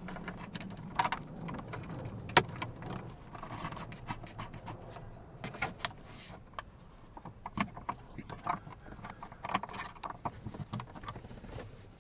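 Small metal-and-plastic clicks and rattles from handling a radar detector mount and its hex bolts on the rear-view mirror stem, with one sharp click about two and a half seconds in.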